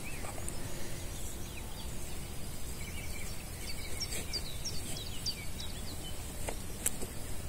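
Steady low outdoor background noise, with a small bird giving a quick series of short high chirps in the middle and a single sharp click near the end.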